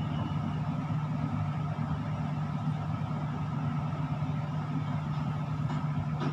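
Steady machinery hum inside a tower crane's operator cab: a low, even drone with a fainter higher whine, unchanging throughout.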